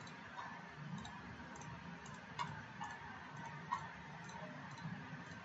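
Computer mouse button clicks, a few sharp, irregularly spaced clicks over a faint steady hiss.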